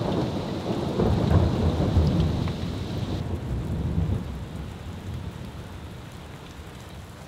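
Rain falling steadily on a wet driveway and its puddles, with a low rumble of thunder that swells about a second in and slowly fades.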